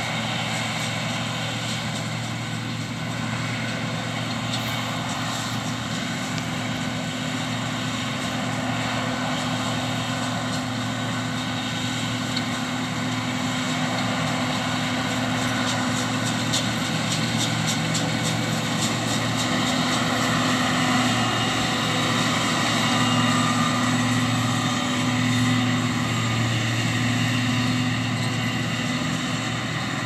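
John Deere 2058 combine harvester working as it cuts winter wheat: a steady engine drone over the hum of the threshing machinery, getting a little louder about two-thirds of the way through.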